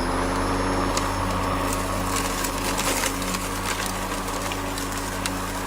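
Greenworks 80V cordless lawn mower's brushless motor and blade running at a steady pitch, with scattered sharp ticks and crackles as it cuts thick grass.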